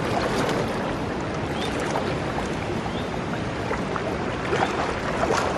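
River water rushing steadily, with a few faint ticks.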